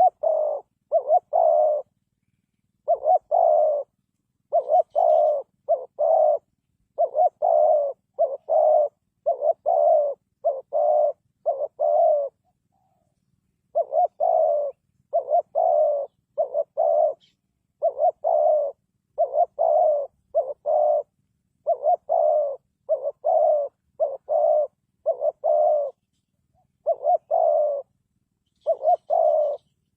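Spotted dove cooing over and over: short low coos in phrases of two to four notes, with brief gaps between phrases and one longer pause about halfway through.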